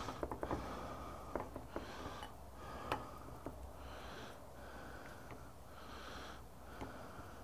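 Quiet handling of raw tuna steaks on a ceramic plate: a hand rubbing oil into the fish and turning the steaks, with faint scattered clicks and taps.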